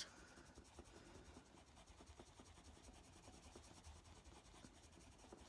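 Faint scratching of a Prismacolor sienna brown coloured pencil on paper, in many small strokes as the colour is built up with firm pressure.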